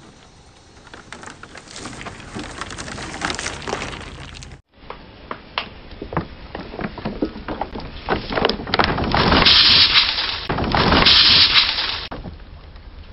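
Car tyre rolling slowly over plastic soft-drink bottles on asphalt: the plastic crackles and snaps as it is squeezed, with a run of sharp clicks and pops. Near the end a bottle bursts, with two loud rushing sprays of liquid about a second each.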